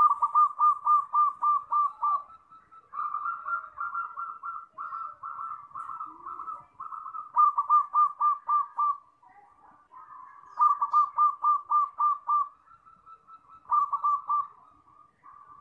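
Zebra dove (perkutut) cooing: phrases of quick, rolling notes at one pitch, about four notes a second, repeated several times with short pauses between the phrases.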